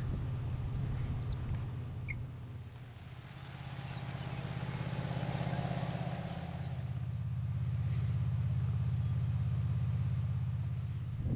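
Wind buffeting the microphone in an open field: a steady low rumble that swells and eases, with a few short bird chirps.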